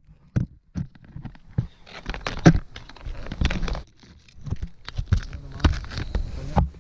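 Irregular clicks, taps and rustling from objects being handled.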